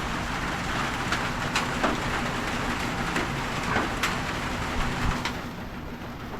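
Rainy roadside traffic ambience: a steady hiss with a low engine hum and scattered sharp taps, the hiss thinning out about five seconds in.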